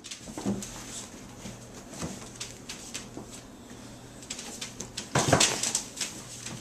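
Young Standard Poodle puppies playing and scuffling on blankets: rustling and scrabbling with small puppy squeaks and grunts, and a louder burst of scuffling about five seconds in.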